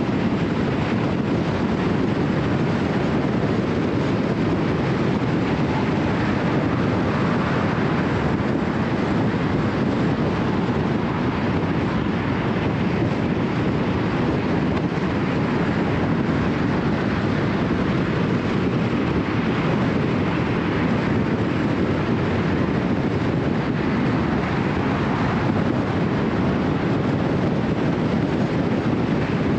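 Steady road noise of a car cruising at highway speed: tyre noise on concrete pavement mixed with wind rush, unchanging throughout.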